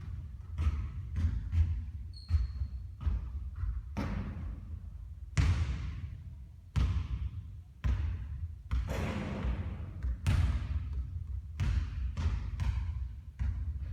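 Basketball bouncing on a court: a dozen or so sharp thuds at uneven intervals, some close together and some a second or more apart, over a steady low rumble.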